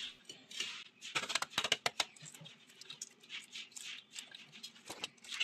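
Hard-boiled egg shell crackling and clicking as fingers peel it off, with a quick run of sharp crackles between one and two seconds in.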